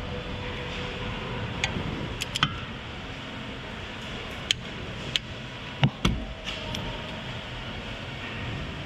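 A few separate sharp metallic clicks and knocks from a torque wrench and socket being worked on cylinder head bolts during the first tightening pass, over a steady workshop hum.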